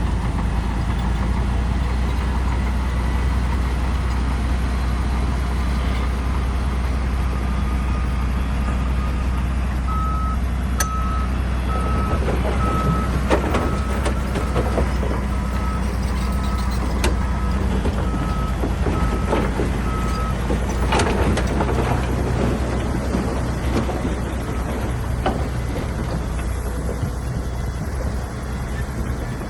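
A heavy diesel machine's engine runs steadily under load while a backup alarm beeps repeatedly for about ten seconds in the middle, a little over one beep a second. A few sharp clanks of metal and stone are heard along the way.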